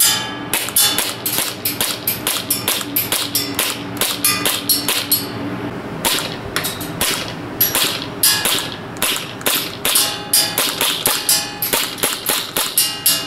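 KWA KMP9 gas blowback airsoft SMG firing a quick string of single shots, each a sharp crack with the bolt cycling, a few shots a second. There is a short pause about five seconds in, then the firing goes on.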